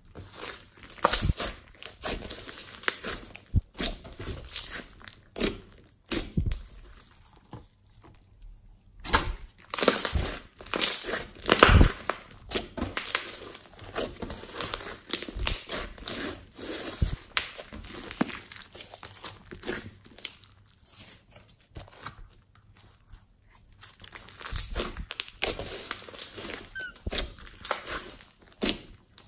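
Glossy slime speckled with glitter and small beads being stretched, folded and pressed by hand. It makes a dense run of sticky clicks and crackles, with two short lulls where the hands pause.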